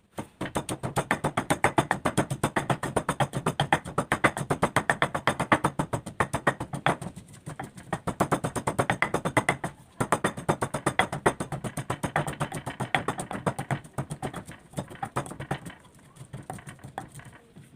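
Pestle pounding shallots and papaya leaves in a mortar: quick, even strikes several times a second, with two short pauses, tapering off near the end as the mixture is ground fine.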